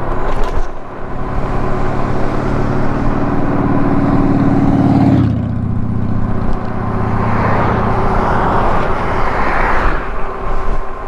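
Road traffic going by close to the moving e-bike. A motor vehicle's engine hums steadily for about four seconds, then cuts off abruptly, and a second vehicle's tyre-and-wind rush swells and fades near the end. Low wind rumble sits under it.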